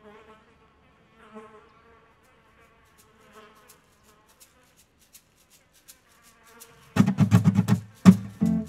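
Strummed acoustic guitar music starts about seven seconds in, after a faint wavering tone.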